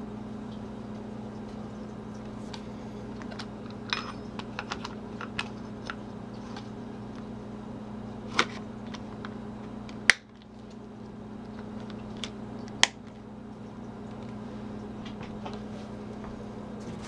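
An axe and its leather sheath being handled: scattered small clicks and taps, with a sharper click about ten seconds in, over a steady low hum.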